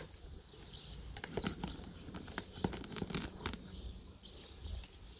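A small white onion pulled by hand from planter soil: a run of small crackles and rustles as its roots tear loose, with birds chirping faintly.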